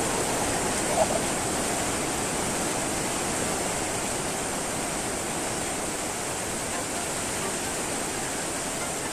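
Steady rushing air noise from an electric stand fan, with a light tap from the metal rack frame about a second in.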